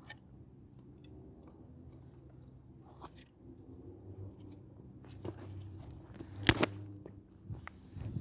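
Dry sticks being handled and stacked into a small campfire teepee: scattered light clicks and crunches, with one sharp loud snap of a stick about six and a half seconds in.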